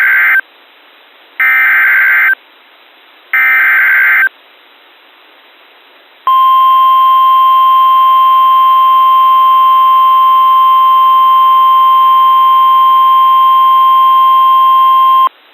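Emergency Alert System SAME header: the end of one screeching digital data burst, then two more, each about a second long and a second apart. About two seconds later comes NOAA Weather Radio's steady 1050 Hz warning alarm tone, held for about nine seconds and cutting off abruptly. The tone signals that a new warning is about to be read: here a severe thunderstorm warning.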